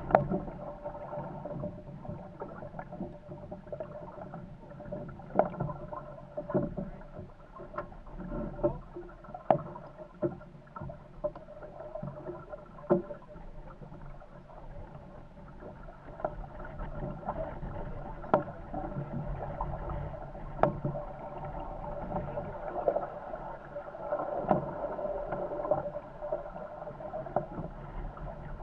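Corsair F-24 MKII trimaran sailing fast in a strong breeze: a steady rush of water along the hulls with a constant hum under it, broken by frequent irregular knocks and slaps as the boat bangs through the chop.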